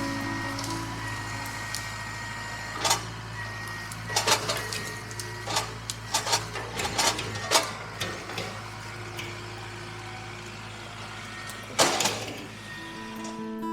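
Tractor diesel engine running steadily, with a scatter of sharp cracks and knocks over it through the middle and one loud knock near the end.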